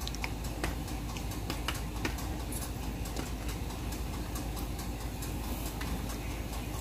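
Faint wet clicks and squelches of a hand working inside a plucked duck's body cavity, loosening the entrails, over a steady low hum.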